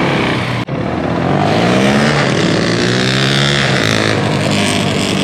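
Small off-road engine pulling hard under throttle. Its pitch climbs for about two seconds, drops sharply near four seconds in, then holds steady. There is a brief cut in the sound under a second in.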